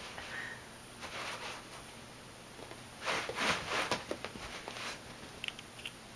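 Soft scuffling and rustling of a kitten's paws on carpet as it dashes and pounces at a sock puppet, loudest about three to four seconds in, with a few light clicks near the end.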